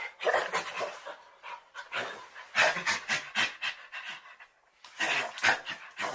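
Nigeria-Cameroon chimpanzee panting in rapid breathy calls, about five pants a second, in three bouts with short breaks between them.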